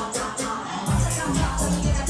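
Music with a steady beat; a deep bass line comes in about a second in.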